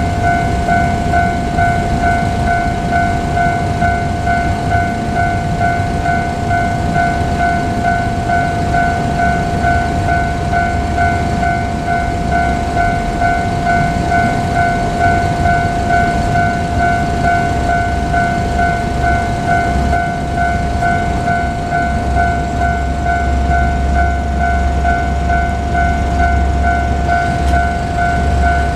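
Japanese level crossing alarm ringing steadily, an even, rapid electronic ding-ding tone, over the low rumble of KiHa 47 diesel railcars that grows stronger about three-quarters of the way through.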